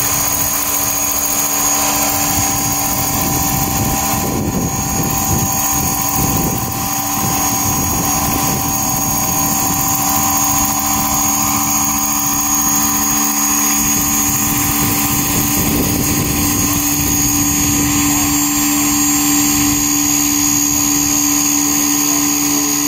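Electric large-scale radio-controlled model of an Aérospatiale SA 315B Lama helicopter hovering and setting down. Its motor gives a steady high whine over a lower hum, both holding one pitch, mixed with the rotor's churning noise.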